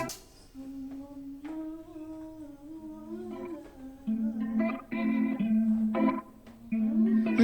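Background pop song in a quiet break: a soft hummed vocal over plucked guitar, growing louder over the last few seconds.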